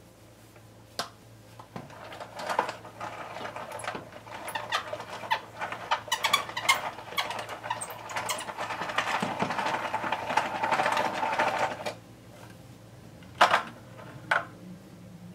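Hand-cranked plastic ramen noodle machine turning, its mechanism clicking and rattling as a sheet of dough is pressed through the rollers. The cranking stops suddenly about twelve seconds in, followed by two sharp knocks.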